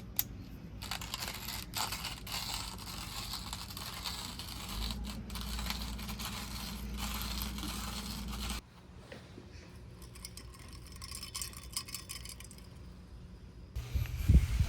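Scraping and rustling handling noises with many small clicks, which stop abruptly about two thirds of the way in, leaving a quieter stretch.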